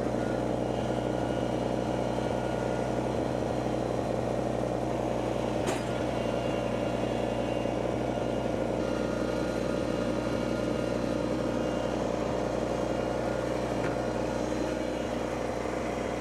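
An engine running steadily at a constant speed, with one sharp click about six seconds in.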